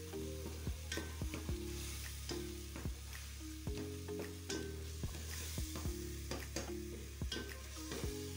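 Wooden spoon stirring a thick, frying tomato and onion base in a metal pot, with a light sizzle and irregular clicks and scrapes of the spoon against the pot. Faint background music with held notes plays underneath.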